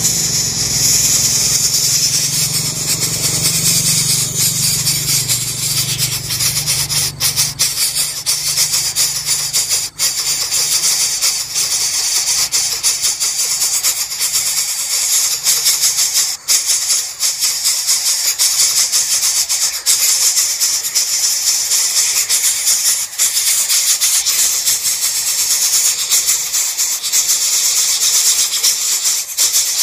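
Coucal nestlings begging for food: a continuous loud, rasping hiss.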